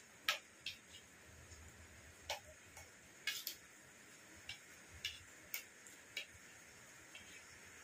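Faint, irregular light clicks of metal spoons against plates as soft food is mashed and scooped, about one or two small clicks a second.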